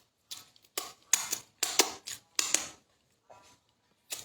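An irregular run of short clicks and scrapes close to the microphone, about a dozen in the first two and a half seconds, then quiet apart from one more click near the end.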